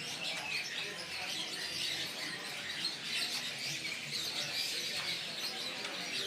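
Many caged songbirds chirping and twittering at once, a dense, unbroken chatter of short high calls; among them young oriental magpie-robins (kacer) that have begun to sing.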